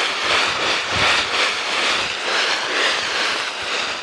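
Footsteps crunching through deep dry leaf litter in a steady walking rhythm, with soft thuds at each step.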